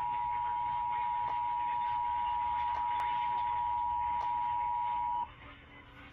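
Emergency Alert System attention signal from a television: a loud, steady electronic tone that cuts off suddenly about five seconds in, announcing a tornado warning, followed by faint room noise.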